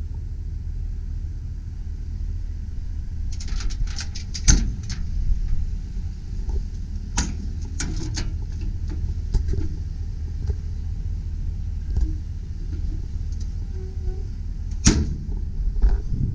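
Metal clicks and clunks from the truck's utility-body storage compartments being handled, over a steady low rumble. There is a quick cluster about four seconds in, a couple more in the middle, and a sharp knock near the end.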